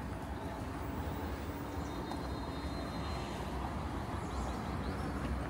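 City street traffic: a steady noise of passing vehicles, mostly low engine sound.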